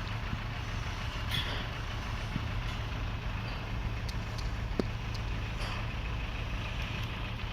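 Heavy diesel machinery running steadily with a low rumble, with a few light knocks and clicks over it.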